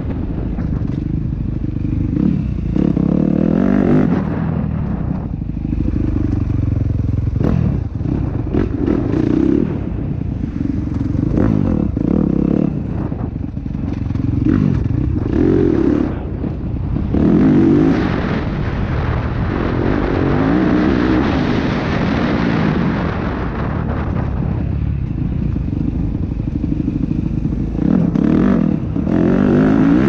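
Motocross dirt bike engine revving up and down as the rider opens and closes the throttle through the track, with repeated brief drops in revs and a longer stretch held at high revs about two-thirds through.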